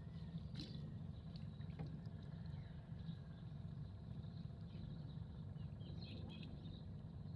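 Faint, steady low drone of a boat engine running, with a few small clicks and chirps over it.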